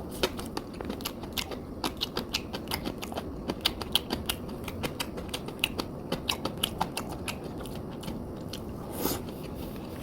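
Eating sounds: chewing, with frequent sharp clicks and taps of utensils against the food container, several a second and irregular.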